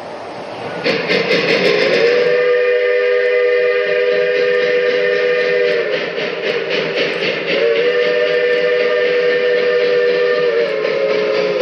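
Union Pacific 4-8-4 #838's three-chime steam whistle sounding a long blast, a second long blast, then a short one, the opening of a grade-crossing signal. Under the whistle runs the rapid, even beat of the steam locomotive's exhaust.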